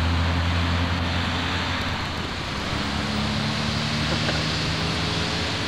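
Steady rushing road-traffic noise with a low droning hum whose pitch shifts about two and a half seconds in.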